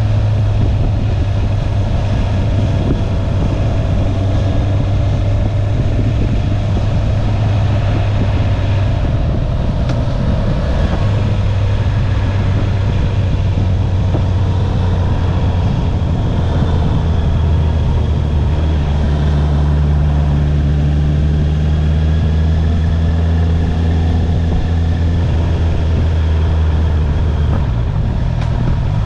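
Stock Honda CB650R inline-four engine running under way, with wind and road noise. The engine note breaks briefly about eleven seconds in, then drops to a lower, steady note from about seventeen seconds in.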